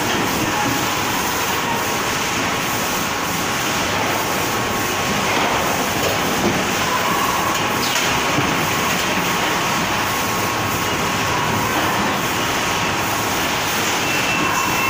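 Robotic case packer for bagged snacks running, with its bag conveyors: a loud, steady mechanical noise with a faint steady tone through it.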